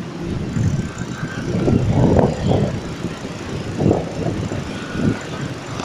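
Wind buffeting the microphone of a camera carried on a moving bicycle: uneven low rumbling surges, loudest about two seconds in, over steady street noise.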